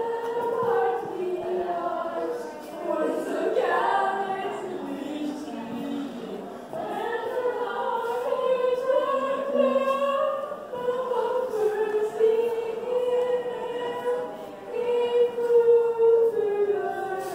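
A choir singing slow, long-held notes, several voices together.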